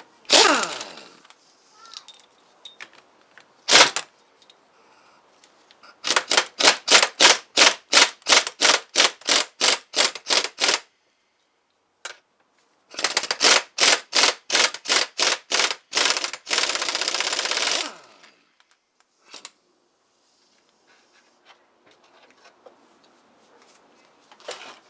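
Air impact wrench hammering a nut off a hydrostatic transmission's input shaft. It comes in two short bursts, then two runs of pulses about three a second, then a steady run of about a second and a half.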